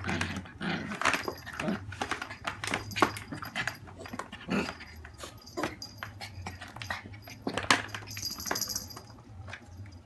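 A maltipoo puppy making a run of short vocal sounds, the strongest about a second, three seconds, four and a half seconds and seven and a half seconds in.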